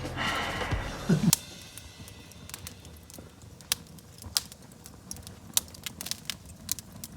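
A charcoal fire crackling as it catches in a barbecue, with irregular sharp pops. A music track ends about a second in.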